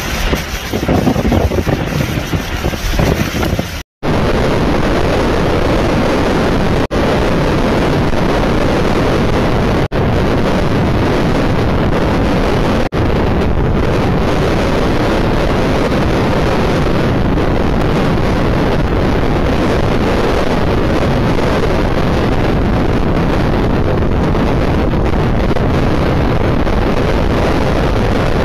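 Hurricane-force wind and driving rain blasting the microphone: a loud, steady rushing noise, broken by a brief cut to silence about four seconds in.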